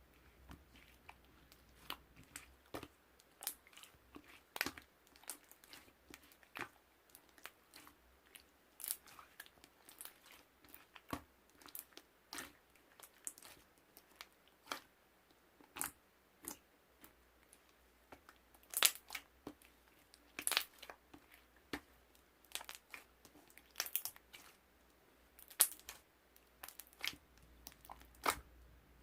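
Close-up crisp crunching and crackling: irregular sharp pops, a few every second, some louder than the rest.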